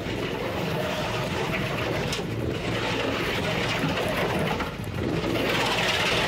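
Small engine of a homemade barrel-drum all-terrain vehicle running steadily under load as it drives through snow. The sound dips briefly about five seconds in, then comes back louder.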